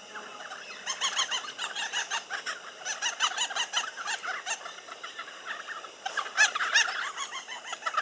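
A group of babblers giving rapid, overlapping chattering calls, busiest from about a second in and loudest around six to seven seconds in.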